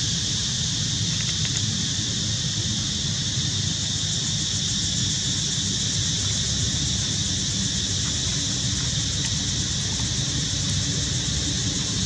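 Steady outdoor ambience: a constant high hiss over a low rumble, with no distinct calls or knocks.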